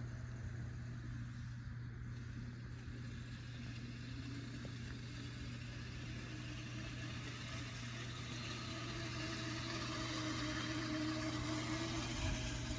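Child-size dirt bike's small motor running, its pitch wavering as it rides, growing louder in the second half as the bike comes closer. A steady low hum runs underneath.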